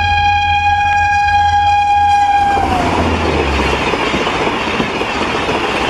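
Gatimaan Express train sounding a long, steady horn that cuts off about two and a half seconds in, followed by the loud rushing and wheel clatter of the train running at speed.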